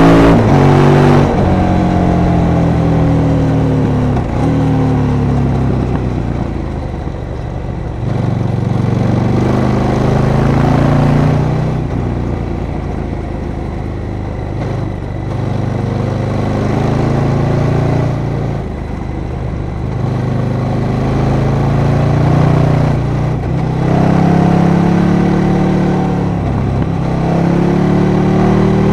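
KTM 1290 Super Duke R's V-twin engine under hard riding, revving up through the gears and dropping back off the throttle again and again, its pitch rising and falling with each pull.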